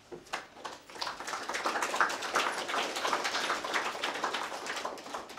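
Audience clapping, building up about a second in and dying away near the end.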